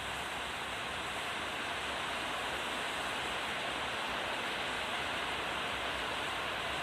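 Steady, even rushing noise with no rhythm or breaks.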